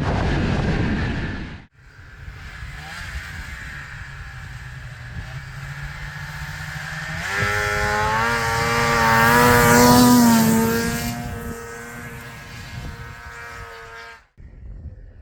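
Snowmobile two-stroke engine running: a 1981 Ski-Doo Blizzard 9500 fitted with a Rotax 583 twin. The note grows louder and climbs in pitch about seven seconds in, peaks, then settles back to a steady drone. Two abrupt cuts break it, near the start and near the end.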